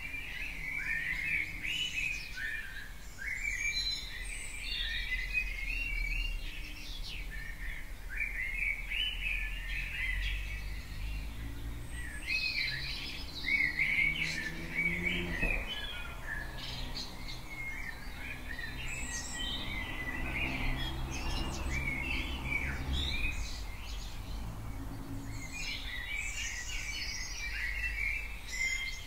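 Dawn chorus: several songbirds singing and chirping over one another in quick, overlapping phrases, over a low background hum that grows stronger in the second half.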